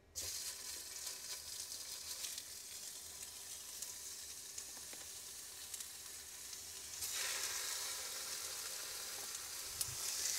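Kangaroo burger patties sizzling as they go into smoking-hot macadamia oil in a cast iron frying pan. The sizzle starts suddenly as the first patty lands and grows louder about seven seconds in as more patties are added.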